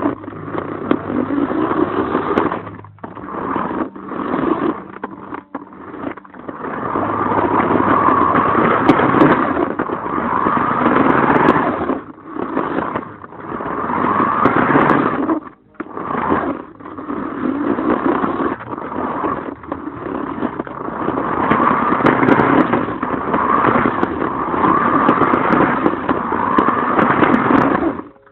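Radio-controlled car running hard, its motor whine sweeping up in pitch in repeated surges of a couple of seconds, with tyre scrape, and several brief cut-outs where it goes quiet.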